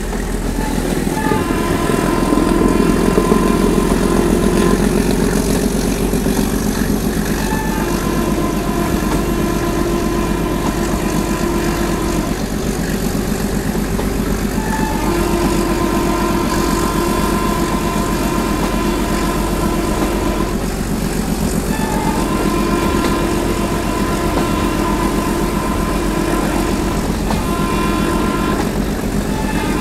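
Meter-gauge diesel train running: a steady engine drone with a low hum beneath, and a higher humming tone that fades in and out every several seconds.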